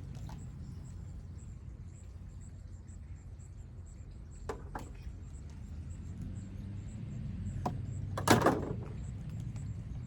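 A few sharp knocks and then a louder, brief clatter about eight seconds in, as parts of a carnival ride are handled during teardown, over a steady low rumble.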